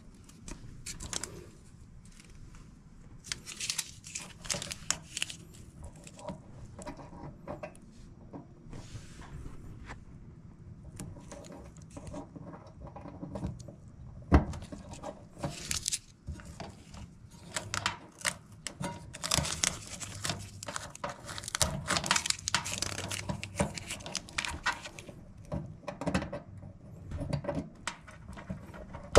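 Irregular handling noise, rustling and crinkling with light clicks, and one sharp knock about fourteen seconds in.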